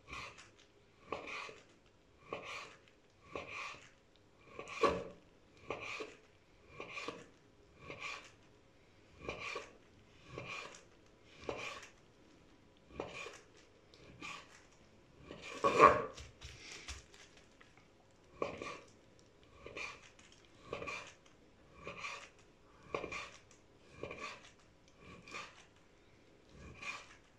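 Chef's knife slicing raw meat into thin strips on a wooden cutting board: a steady cutting stroke about once a second, each ending on the board, with one louder stroke about halfway.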